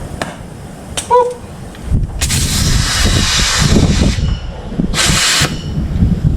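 A click and a brief high squeak, then two bursts of loud hissing, the first about two seconds long and the second about half a second, over a low rumble.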